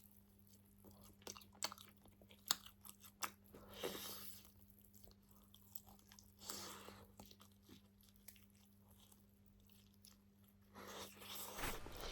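Close-miked chewing and biting of food, with sharp crunching clicks and a few short wet, noisy chews, then a louder stretch of chewing and handling noise near the end.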